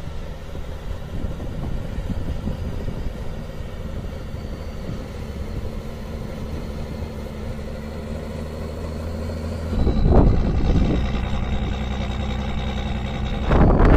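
Off-road 4x4 vehicle's engine running steadily at low revs, growing louder about ten seconds in.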